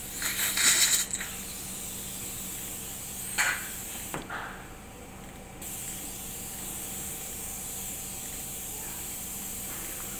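Dental surgical suction hissing steadily, with a louder spraying burst of suction lasting about a second at the start and two short bursts around three to four seconds in. The hiss cuts out for about a second and a half near the middle, then resumes.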